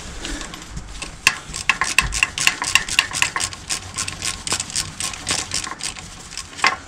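Ratchet wrench clicking in a run of quick metallic ticks, about five a second, then a few slower ones, as a fastener is tightened on the motorcycle.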